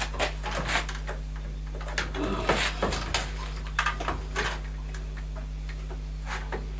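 Plastic clicks and rattles of wiring connectors and the plastic control-board housing being handled inside a gas boiler. They are busiest in the first four seconds or so, then a few scattered clicks follow, over a steady low hum.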